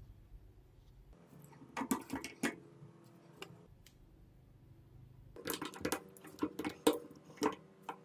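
Plastic drill housing and a small screwdriver being handled and pried at: a quick cluster of clicks and knocks about two seconds in, then a longer run of sharper clicks and knocks in the second half.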